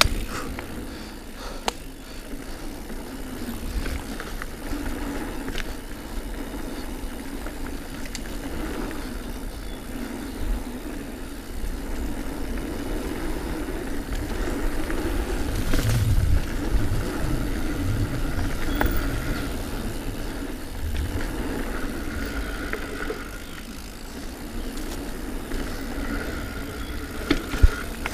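Diamondback Release 3 mountain bike rolling at speed down dirt singletrack: steady tyre noise and bike rattle, with deep rumble that swells and fades and a couple of sharp knocks near the end.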